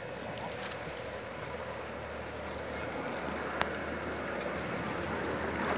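Steady outdoor background hiss with a faint low hum under it, and one sharp click about three and a half seconds in.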